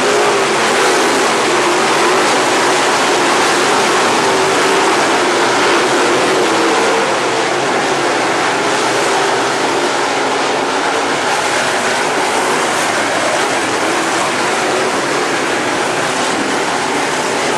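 A field of dirt late model race cars with V8 engines running hard as they race past, a dense continuous din whose engine notes rise and fall as the cars go by. It eases off slightly about halfway through.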